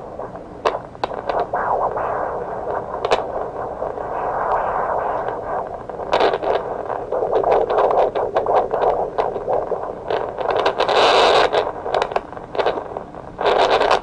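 Handheld fetal Doppler monitor's speaker output: a muffled, radio-like hiss with irregular scraping crackles as the probe moves over the gel, growing louder and brighter about eleven seconds in.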